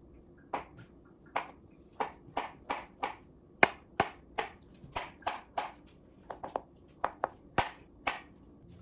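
Kitchen knife cutting through avocado halves and knocking on a plastic cutting board: about twenty sharp taps at an uneven pace, roughly two to three a second, as the flesh is scored into cubes.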